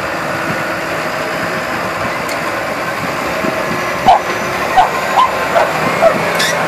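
A farm tractor's engine running steadily. From about four seconds in, a dog yips repeatedly, about twice a second; these are the loudest sounds.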